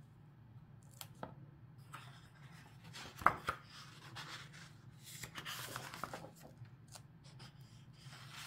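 Pages of a hardcover book being turned and handled: paper rustling with light ticks and taps. A sharp tap a little over three seconds in is the loudest sound.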